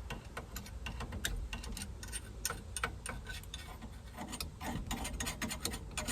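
Dirt and grit being knocked out of the removed steering-column parts onto the car floor: a rapid, irregular run of light clicks and ticks that grows denser in the last couple of seconds.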